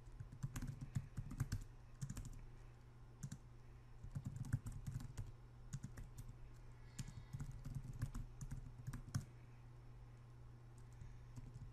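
Typing on a computer keyboard: irregular runs of quick keystrokes with short pauses between words, over a steady low hum.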